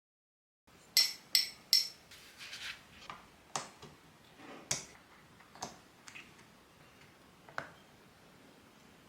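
Full metal keycaps clinking against metal: three loud, ringing metallic clicks in quick succession about a second in, then a scatter of softer clicks and taps that thin out.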